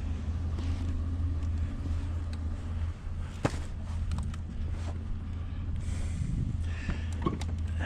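Van engine idling steadily, with a few light clicks and one sharp knock about three and a half seconds in.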